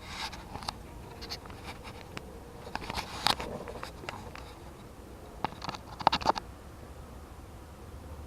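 Scattered light clicks and scrapes of hand work at the crankshaft position sensor, with a louder scrape about three seconds in and a quick run of clicks around six seconds in.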